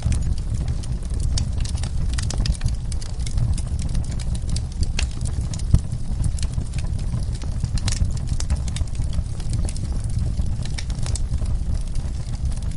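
Wood fire in a fireplace crackling: many sharp, irregular pops and snaps over a steady low rumble of the flames, with one louder pop about halfway through.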